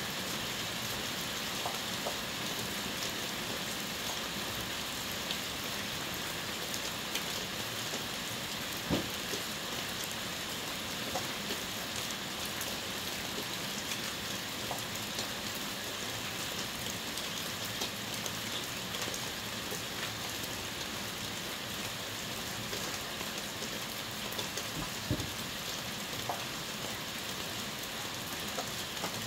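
Rain falling steadily on wet ground, puddles and leaves: an even hiss with scattered single drop ticks. One sharper knock stands out about nine seconds in.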